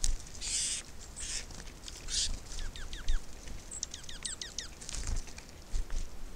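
Small birds at a feeder: a few short harsh bursts, then two quick runs of down-slurred chirps, among scattered small ticks.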